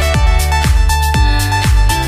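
Electronic dance music with a heavy kick drum about twice a second, each beat a booming thud that falls in pitch, under a held synth note.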